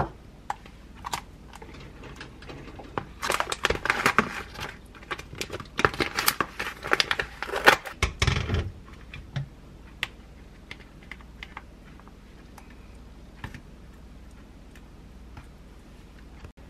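Kitchen prep handling: a few knife taps on a wooden cutting board, then several seconds of plastic packaging crinkling and rustling over a stainless mesh strainer, ending in a dull thump. Afterwards only sparse light clicks of things being handled.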